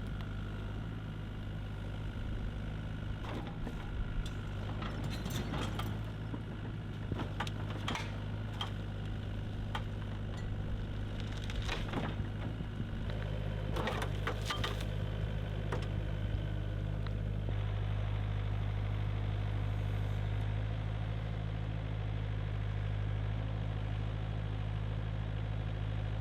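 Excavator diesel engine running steadily under hydraulic load, with scattered sharp cracks and knocks as a TMK 300 tree shear cuts and handles trees.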